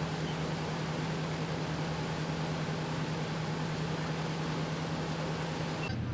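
Pumper fire engine's engine and pump running steadily: a constant drone with a low hum. Just before the end it changes abruptly to a lower, duller drone.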